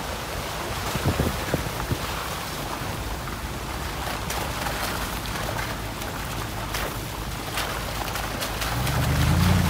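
4x4 driving slowly over a rough, muddy dirt track, engine and tyres running under wind buffeting the microphone. There are a few sharp knocks about a second in, and a deep rumble swells near the end.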